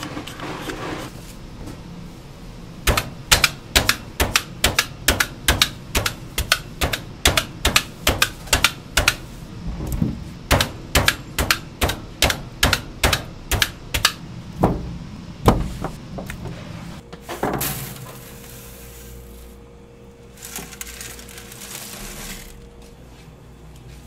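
A knife chopping on a cutting board in a steady rhythm, two to three strokes a second, for about twelve seconds; then a rushing hiss for a few seconds near the end.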